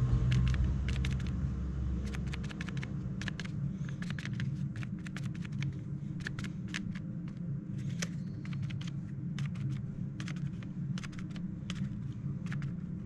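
Crumpled paper being dabbed again and again onto wet spray paint: irregular crisp taps and crinkles, several a second. A vehicle's low rumble fades out over the first two seconds, over a steady low hum.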